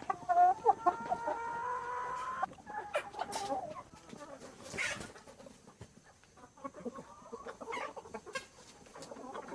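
Chickens clucking, with a rooster crowing in one long call during the first two and a half seconds, then scattered short clucks that grow quieter.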